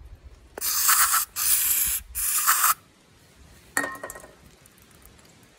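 Aerosol can of carburetor cleaner sprayed in three short hissing bursts into a tractor hydraulic control valve body, flushing debris out of the valve passages. A single metallic clink follows near the end.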